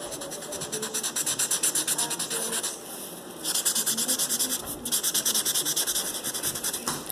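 Quick back-and-forth scribbling of a pen or marker tip on paper, drawing in grass, with many strokes a second. The scribbling stops for about half a second around three seconds in, then carries on.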